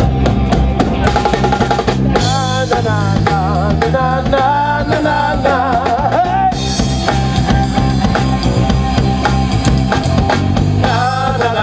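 Upbeat band music with a steady drum-kit beat and a wavering melody line in the middle.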